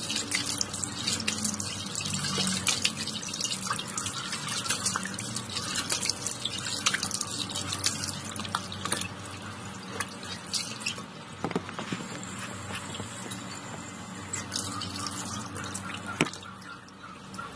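Water running from a tap into a sink, with splashing and dripping as a face is washed with cupped hands.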